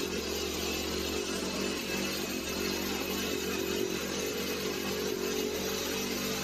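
Small engine-driven power tool running steadily, its engine note holding an even pitch.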